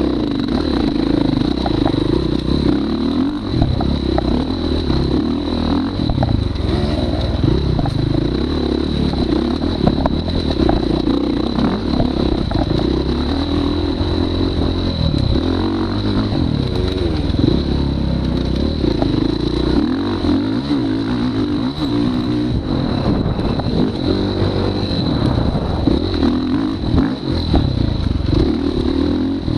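Dirt bike engine revving up and down under a rider, its pitch rising and falling every second or two without a break.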